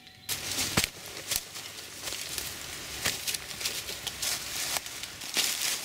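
Hiking boots (LOWA Renegade GTX Mid) stepping through dry leaf litter and twigs on a forest floor, the leaves rustling and crackling with sharp snaps under each step.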